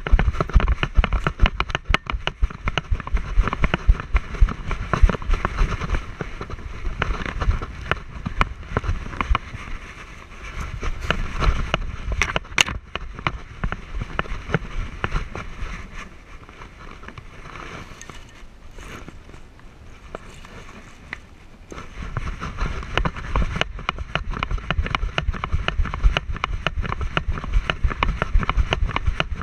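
A dog running on desert gravel, heard through a camera strapped to it: quick paw falls crunching on stones, with low thumps from the bouncing mount and wind buffeting. It eases to quieter, gentler steps for several seconds past the middle, then picks up again.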